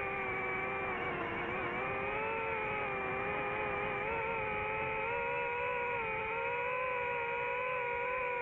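DJI FPV drone's motors and propellers whining steadily in flight. The pitch dips and comes back up about a second in, then wavers gently with the throttle.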